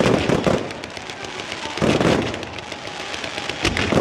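Fireworks going off: a loud burst at the start, another about two seconds in and a third near the end, with crackling between them.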